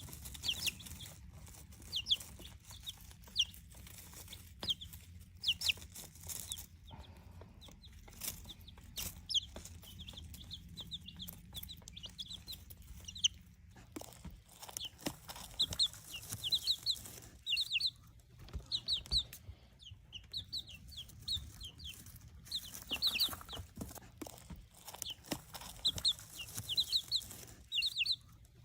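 Buff Orpington chicks making short, high "yip yip" cheeps, often in quick runs of two to four, repeated all through. These are happy, relaxed chick calls that mean nothing is wrong.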